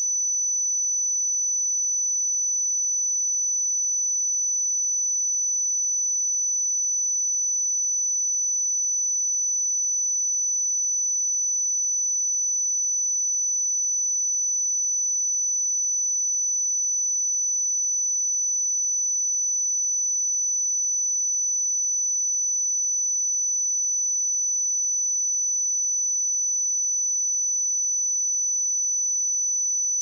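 A pure 5986 Hz sine-wave test tone, a single high-pitched steady whistle held at constant level.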